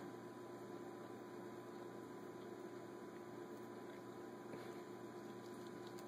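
Faint steady electrical hum with a low background hiss.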